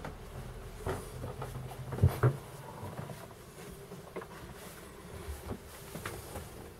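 Scattered light knocks and bumps in a small boat cabin, with two louder thumps close together about two seconds in, over a faint low hum: someone moving about and handling the camera.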